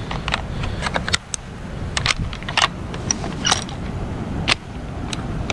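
Bolt-action rifle being worked by hand: a series of sharp metallic clicks and clacks from the bolt, some with a short ring, over a low wind rumble.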